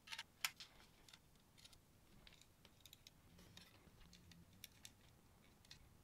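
Near silence with a few faint clicks at the start and two more a little before the end: the small sounds of fingers handling a Raspberry Pi Compute Module 4 on its IO board, fitted with brass standoffs.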